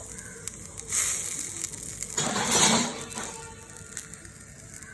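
Bread sandwich sizzling on a hot tawa, with two louder rushing bursts about one second and two and a half seconds in.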